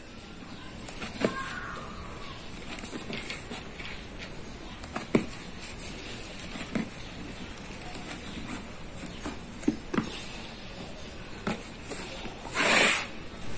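Soft, scattered taps of pieces of bread dough being torn off and set down as balls on a floured wooden board, with a brief rushing noise near the end.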